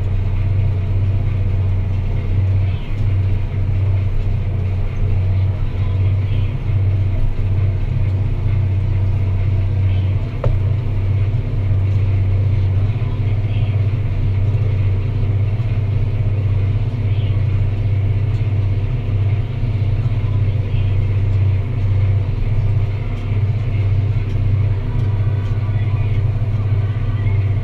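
Deutz-Fahr Agrotron 165 MK3 tractor engine running steadily under load, pulling a plough, with a deep, even hum. There is a single brief click about ten seconds in.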